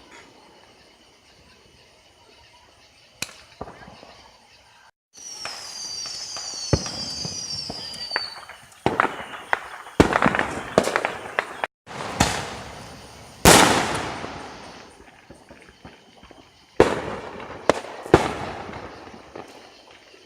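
Consumer fireworks going off: a single crack, then several overlapping whistles falling in pitch, followed by a string of sharp bangs and crackling reports. The loudest bang, with a long ringing tail, comes about two-thirds of the way through.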